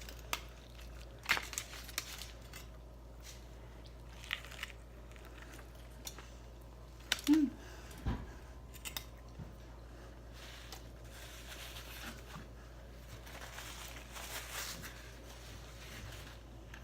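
Close-up eating sounds: scattered crunches and bites of a crispy fried-masa gordita, with crinkling of food packaging. There is a short loud squeak about seven seconds in and a low thump just after it, over a steady low hum.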